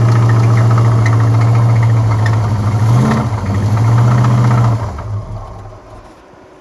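1976 Corvette's small-block Chevy V8 idling with a rhythmic knock, the sign of a failing connecting-rod bearing (rod knock). It is blipped briefly about three seconds in, then switched off and runs down near the end.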